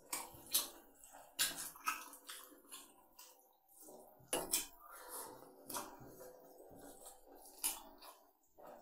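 A bare hand mixing and kneading rice with fish curry on a plate: soft squelches and a scattered series of short clicks as the fingers work the rice against the plate.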